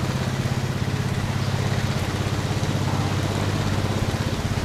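Vehicle engine running at a steady, even speed, with a low hum and a fast regular throb.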